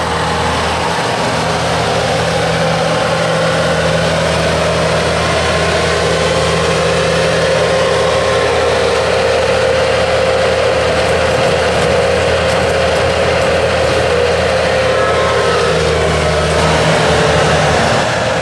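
Bobcat S220 skid-steer loader's engine running steadily as the machine drives with a loaded bucket and raises its lift arms, with a steady higher whine joining from about six seconds in.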